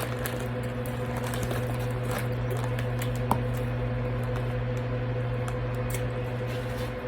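Steady low mechanical hum with a few fixed tones, under faint small clicks and rustles of eating from a food bowl, with one sharper click about three seconds in.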